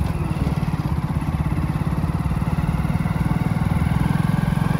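Motorcycle engine running steadily while the bike is ridden, a fast even throb of firing pulses with road noise.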